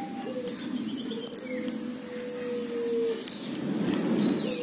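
Thin enamelled copper wire being hand-wound onto a small blender motor armature: soft rustling and scattered ticks, the rustling louder near the end. Birds chirp briefly in the background.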